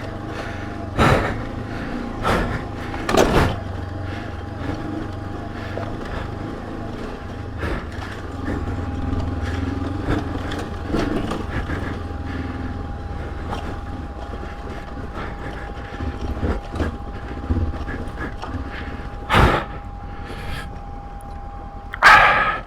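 Honda CB500X's parallel-twin engine running under load on a rough hill climb, with several sharp knocks from the bike hitting bumps and ruts, three in the first few seconds and one near the end.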